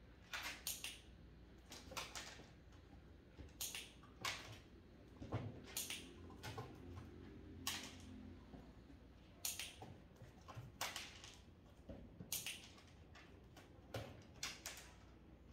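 A run of sharp clicks and taps, irregular and often in pairs, as a dog steps in and out of the base of a plastic pet carrier on a hard stone floor.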